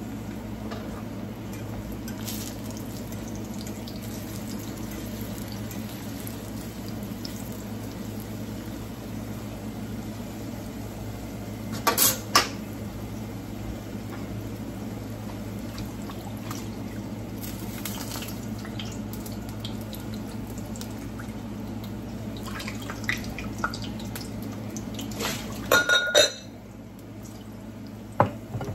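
Ripe plantain slices (maduros) frying in oil in a skillet, a steady sizzle. There are a few sharp clinks of cookware, one about twelve seconds in and a cluster near the end.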